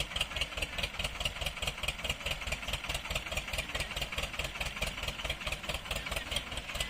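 Engine running steadily at a constant speed with an even, rapid pulsing beat.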